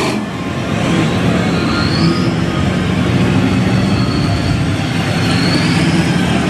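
Engines of off-road vehicles and trucks running steadily, a loud continuous rumble with a faint high whine that rises twice.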